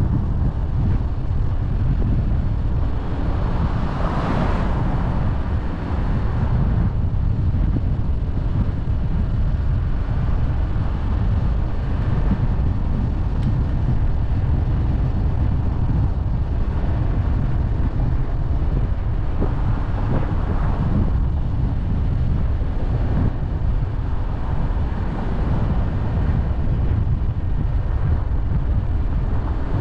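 A car driving at speed: a steady low rumble of road and wind noise, with a few brief swells.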